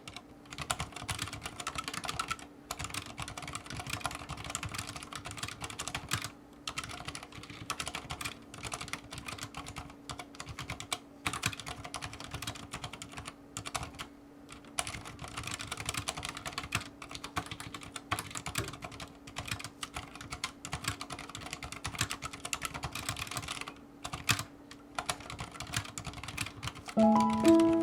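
Continuous typing on a CROAD C604 mechanical keyboard with Cherry MX Silent Red switches and custom keycaps: a dense, muted patter of keystrokes with short pauses. Near the end a few loud musical notes come in.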